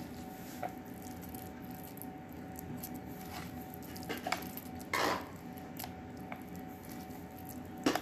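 Wet rice-and-vegetable stuffing squished and packed by hand into a hollowed green vegetable for mahshi, with scattered small clicks and a brief rustle about five seconds in. A faint steady hum runs underneath.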